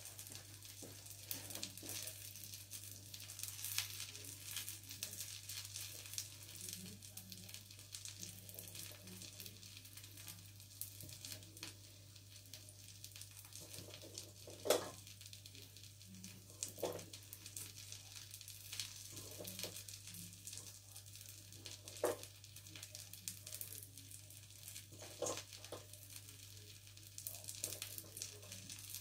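Faint sizzling and crackling of hot frying oil, over a steady low hum. A few sharper knocks come through as fried food is set onto a plate from a metal bowl.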